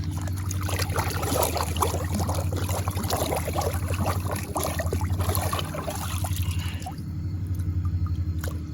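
River water splashing and trickling as a cleaned catfish is rinsed in it, the splashing dying down about seven seconds in. A steady low hum runs underneath.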